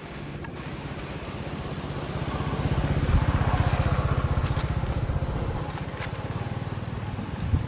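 A motor vehicle's engine running as it passes, a low pulsing hum that grows louder to about three seconds in and then fades.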